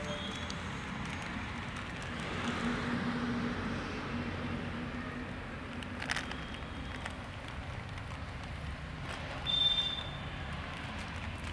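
Steady outdoor background noise, with a faint low hum that swells and fades over a few seconds, a single click about six seconds in, and a brief high squeak near the end.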